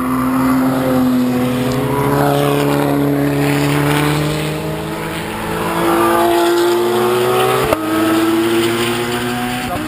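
Car engines under hard acceleration through a racetrack bend, their pitch climbing steadily, with another car's engine joining partway through. There is a single sharp pop about three-quarters of the way through.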